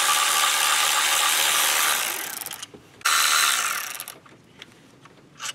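Cordless electric ratchet running in two spells, about two and a half seconds and then about a second, backing out the 10 mm bolts that hold a coil pack.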